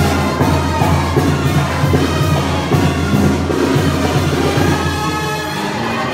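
Live band playing dance music with drums and a steady deep bass line; the bass drops away near the end.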